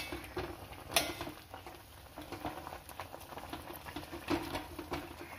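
Chicken pieces simmering in turmeric water in an open metal pot, bubbling, while a metal spoon stirs them and clinks against the pot. A sharp metal clink comes at the start and another about a second in.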